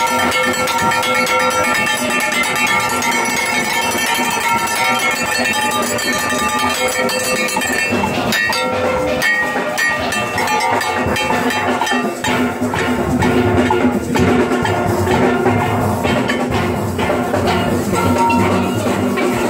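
Steelband playing on the road: ringing steel-pan notes over a rhythm section of metal percussion struck by hand. About eight seconds in the held pan notes thin out and sharp clanking strikes come to the front.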